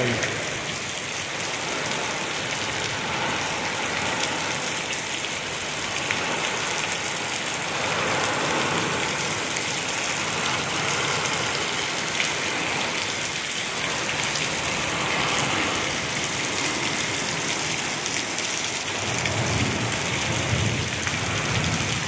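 Torrential rain pouring down hard and steadily in a severe thunderstorm, driven by gusting wind. A low rumble swells near the end.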